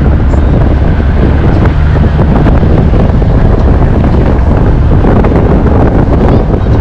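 Strong wind buffeting the microphone of a moving vehicle, a loud, steady low rumble with road noise beneath it.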